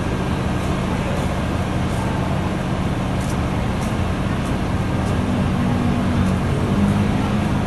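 Double-decker bus engine idling with a steady low hum.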